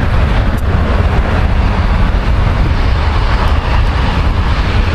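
Airliner jet engines running on the runway, a loud steady roar heaviest in the low rumble.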